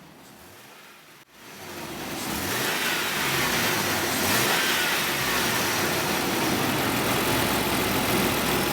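Nissan Patrol's 4.8-litre straight-six petrol engine running, faint at first; about a second in, its revs climb and it gets louder, then it holds a steady speed.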